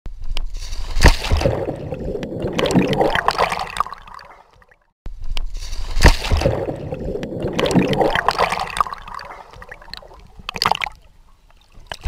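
Pond water splashing and sloshing against a camera held at the waterline, with a few sharp slaps. The stretch cuts off suddenly about five seconds in and the same splashing plays again, then softer splashes follow.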